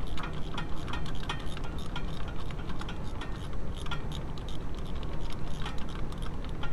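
Ratchet wrench on a long extension clicking in quick, uneven runs as a mounting nut is worked loose, over a steady low hum.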